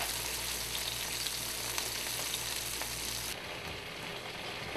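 Salt-sprinkled whole herring sizzling in a frying pan on a gas burner: a steady sizzle with a few scattered pops. A low hum under it stops about three and a half seconds in.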